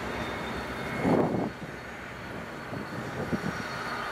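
Diesel-electric locomotive engine running steadily as the locomotive approaches slowly at the head of a passenger train, with a brief louder rush of noise about a second in.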